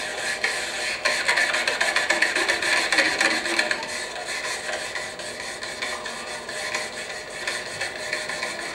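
A long latex modelling balloon being rubbed by hands, a dense rubbing noise that is loudest from about one to four seconds in, then fainter. It is heard as played back over a theatre's loudspeakers.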